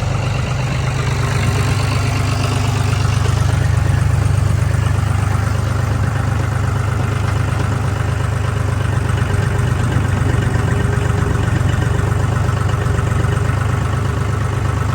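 An engine idling steadily with a low hum, rising a little in level a few seconds in.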